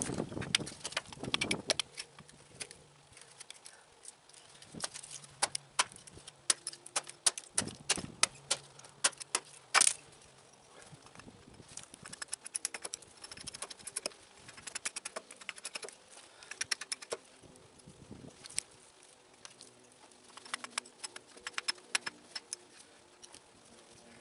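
Chicken Hawk hatchet, a carpenter hatchet modified with an undercut bit, carving a wooden spoon blank: a run of short cuts and paring strokes heard as quick clicks and scrapes of steel on wood. There are heavier chops in the first second or two and one sharp, louder knock about ten seconds in.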